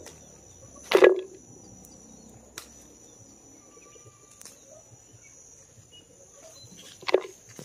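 Chili peppers being plucked from the plant by hand: two sharp snapping rustles of stems and leaves, about a second in and near the end, with a few faint clicks between. A steady, faint, high-pitched whine runs in the background.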